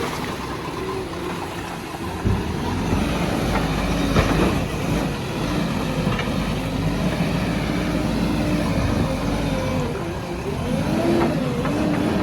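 Diesel engine of a JCB 3DX backhoe loader running under load, its pitch rising and falling repeatedly as it revs, with a couple of short knocks in the first half.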